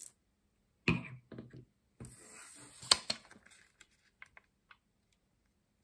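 Crafting noises on a wooden tabletop as a glue stick is put aside and a paper circle is pressed onto a cardboard disc: a knock about a second in, a short rustle with one sharp click near the middle, then a few light taps.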